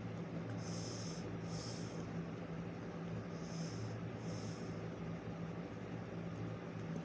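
A person breathing through the nose close to the microphone: four short hissing breaths in two in-and-out pairs, over a steady low hum.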